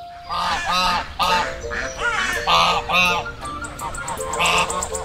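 A flock of swans calling in flight: a quick run of repeated, overlapping calls starting just after the beginning, over light background music.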